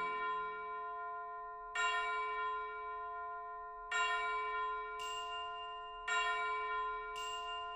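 Background music: a bell-like chime chord struck three times, about every two seconds, each strike ringing out and fading slowly, with a soft high shimmer twice near the end.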